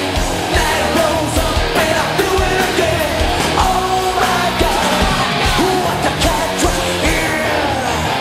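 Hard rock band playing live at full volume: distorted electric guitars and drums under a male lead vocal.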